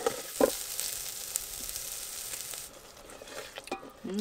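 Chopped onions scraped off a wooden cutting board into a hot pot with garlic, sizzling as they hit the oil. There is a knock about half a second in. The sizzle fades after a couple of seconds, followed by a few light clicks.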